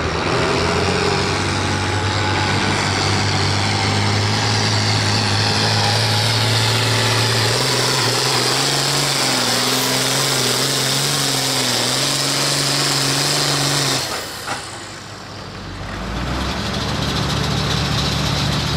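Hot stock pulling tractor's turbocharged diesel engine running hard under load during a pull. Its note steps up in pitch about halfway and wavers, then drops away suddenly about three-quarters through as the run ends, leaving a quieter engine running near the end.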